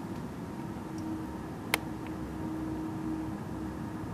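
A steady low hum from the night sky, with one held tone running through it. A single brief click comes just under two seconds in.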